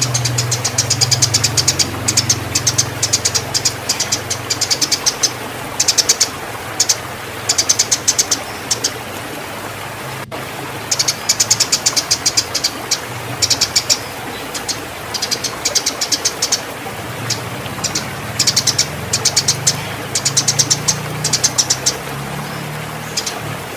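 Eurasian tree sparrows giving fast, excited chattering chirps, the agitated calls of fighting birds in breeding condition. The chirps come in quick runs with short pauses between them, over a low steady hum.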